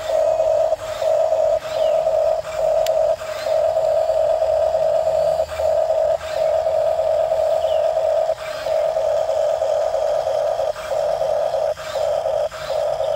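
Huina RC toy bulldozer's electric track drive whining at one steady pitch while it crawls up onto a trailer. The whine drops out briefly a dozen or so times at uneven intervals, with light clicks and clatter from the tracks.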